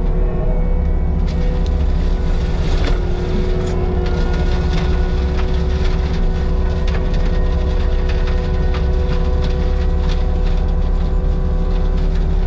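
Heavy diesel earthmoving machine running under load, with a steady low rumble and a steady hydraulic whine, and scattered clicks and knocks throughout.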